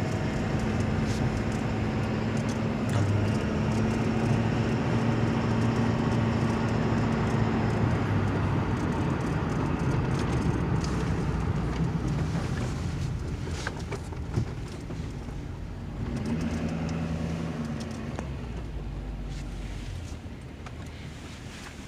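Truck engine and road noise heard from inside the cab while driving, a steady low hum. It grows gradually quieter over the second half as the truck slows down.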